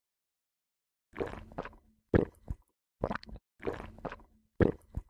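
Drinking gulps from a glass: five short gulps, about one a second, starting about a second in.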